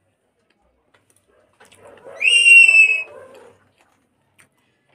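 A single loud, high-pitched animal call, under a second long, that swoops up and then holds, with a rougher, lower sound around it; the rest is quiet.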